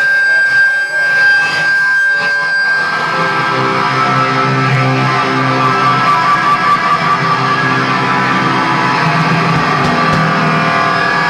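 Live rock band playing loud, with electric guitar and bass. A single high tone rings over a few scattered hits at first, then the full band comes in about three seconds in.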